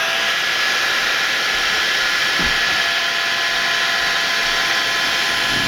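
Heat gun coming on and running steadily, blowing hot air with a constant fan whine, used to soften the adhesive holding a connector in place.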